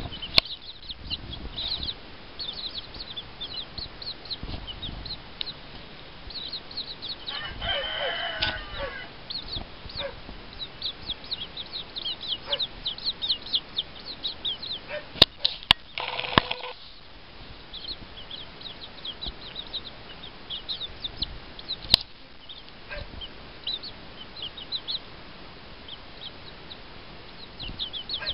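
Bantam chicks peeping continually in short, high cheeps. The bantam hen gives one longer call about eight seconds in. A few sharp clicks and a brief scuffle come a little past halfway.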